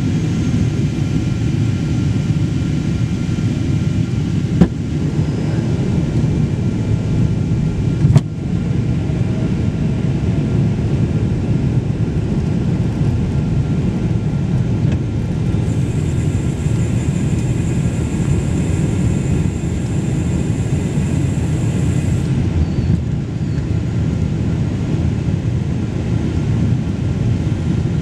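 Steady low rumble of engine and airflow noise inside the cabin of a Boeing 777-200 descending on approach with flaps extended. A sharp click sounds about four and a half seconds in and another about eight seconds in, and a faint high hiss comes in for several seconds past the middle.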